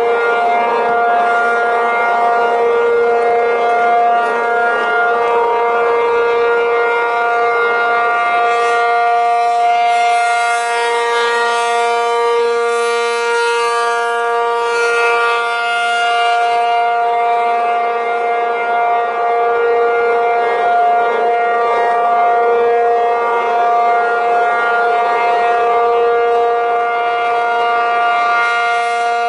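ACA P-50 rotating electromechanical siren sounding a steady alert: two held tones, about 470 and 705 Hz, together as one chord. The sound slowly swells and fades as the horn turns at 3 RPM.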